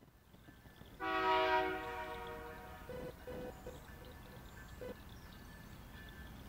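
Freight locomotive air horn, on Canadian Pacific GE ES44AC 8028, sounding for a grade crossing. One loud multi-note chord starts suddenly about a second in and fades over the next second or so, followed by a few short, quieter tones.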